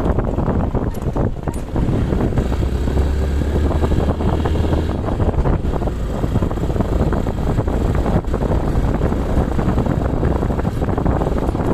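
Motorcycle engine running steadily while riding, with heavy wind buffeting the microphone.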